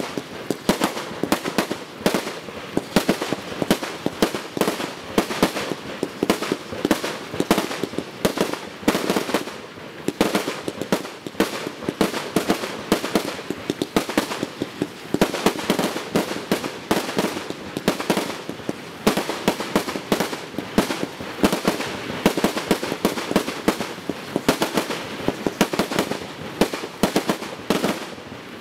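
A 100-shot 1.2-inch fireworks cake firing in rapid succession, a continuous string of shots and bursts coming several a second.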